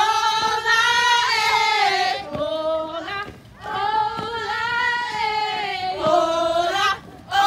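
A group of women singing a chant in unison with long held notes, in two long phrases broken by a short pause about halfway through.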